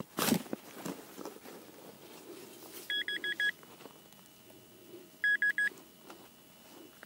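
A rough crunch of a shovel going into the soil, then a metal detector beeping in two quick runs of four short, high beeps, about three seconds in and again about five seconds in: the target is being located in the dug hole. A faint steady tone hangs on after the beeps.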